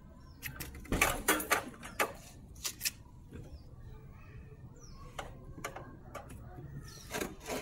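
A run of light clicks and rattles about a second in, with a few more later, from small parts being handled around a plastic oil drain jug.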